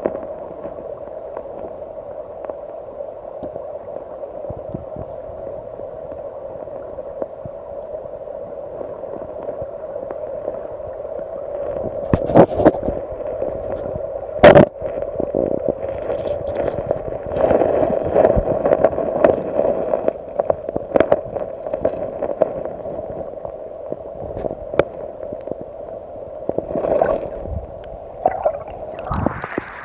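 River water heard from a camera held underwater: a muffled rush with a steady hum. A few sharp knocks stand out, the loudest about halfway through, then scattered bursts of disturbed water, and a rising rush near the end.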